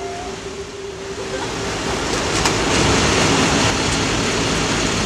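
Steady vehicle noise at a petrol station forecourt, a low rumble under a hiss, fading up about a second in and then holding steady, with a couple of faint clicks.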